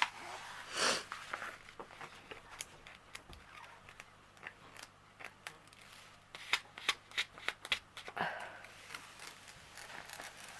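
A rolled diamond painting canvas and its plastic film being handled and closed up, rustling and crinkling, with a quick run of sharp clicks about two-thirds of the way through.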